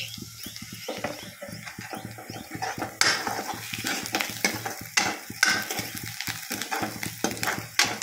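Chopped onions frying with a light sizzle in a kadhai while a metal spoon stirs them, scraping and clinking against the pan in repeated sharp strokes.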